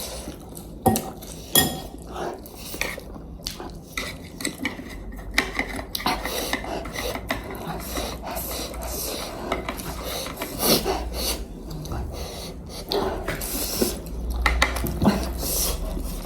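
Eating utensils clicking, tapping and scraping against bowls and dishes in irregular, scattered strokes.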